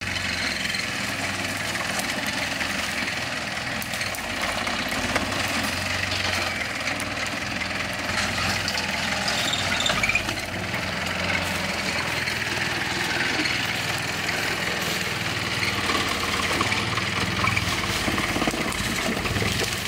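Off-road-modified 4x4 Jeep's engine running steadily while the Jeep crawls slowly over roots and rough ground.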